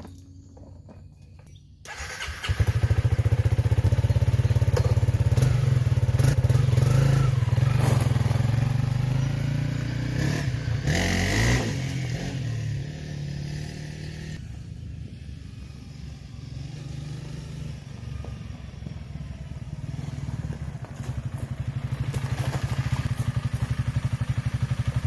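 Honda CRF300L single-cylinder four-stroke dual-sport motorcycle engine running. It comes in suddenly about two seconds in, runs loud and steady, eases off around the middle and picks up again near the end.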